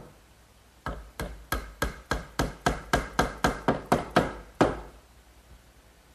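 A quick run of about fifteen sharp hammer blows on wood, three to four a second, each with a short ring, stopping a little before five seconds in.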